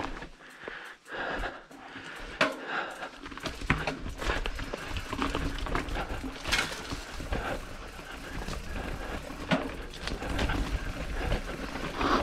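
Mountain bike rattling and knocking over a rocky trail, with wind rushing over the camera microphone and frequent sharp clicks and clatters from the bike.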